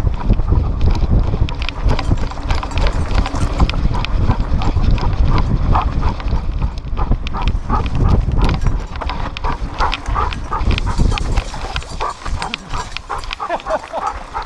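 A dog running hard with an action camera strapped to its back: rapid paw footfalls, knocks and rattles from the harness mount, and a low wind rumble. From about halfway through, quick short panting breaths come two to three a second.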